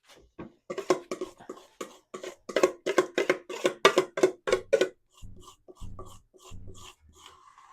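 Background music with a quick, even percussive beat, then short low bass notes in a repeating pattern from about five seconds in.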